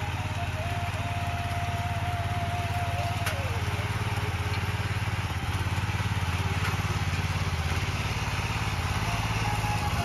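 Small single-cylinder petrol engine of a walk-behind power tiller running steadily under load as its tines churn the soil. Background music plays over it.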